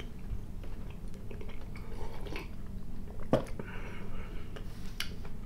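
Close-miked chewing of a soft fruit jelly candy, with soft wet mouth sounds and two sharp clicks, one about three seconds in and one near the end.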